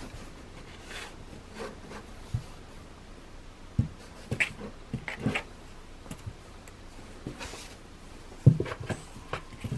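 A pet cat moving about a small room, with scattered soft knocks and brief rustles at uneven intervals.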